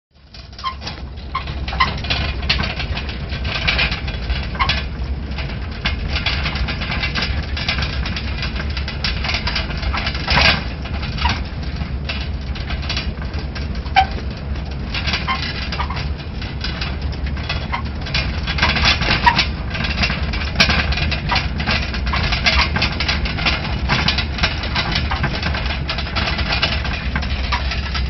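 Vehicle engine running with a low rumble while driving along a rough dirt track, the body rattling and clicking over the ruts; the sound fades in over the first second or so.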